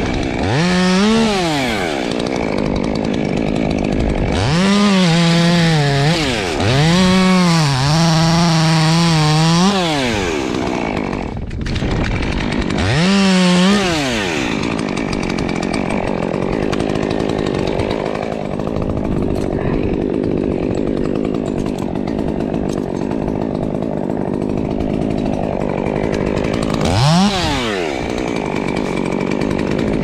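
Muffler-modded Stihl top-handle chainsaw revved to full throttle in several short bursts while cutting birch limbs, each rev rising and then falling back. For much of the second half it idles, with one more brief rev near the end.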